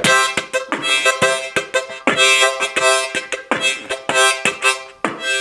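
Harmonica played in quick rhythmic chords: many short chord blasts, several a second, with a few longer held chords.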